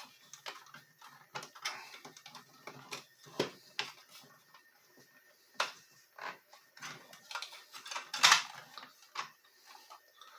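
Irregular clicks, knocks and scrapes of a battery-powered clamp's clamshell housing being worked apart by hand, with the loudest knock about eight seconds in.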